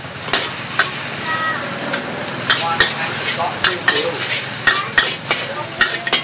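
Noodles sizzling in a large metal wok as two metal ladles stir and scrape through them, clacking against the pan in sharp, irregular strikes over a steady hiss.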